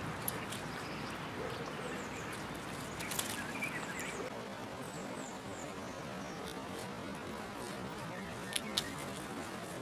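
Garden ambience: a steady background hiss with a few faint bird chirps, and two sharp clicks near the end.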